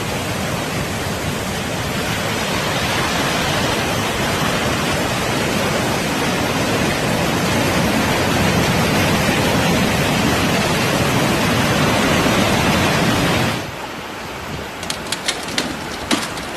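Heavy rain pouring, a dense steady hiss that grows slightly louder and then cuts off about 13.5 seconds in. A quieter stretch follows, with scattered sharp taps near the end.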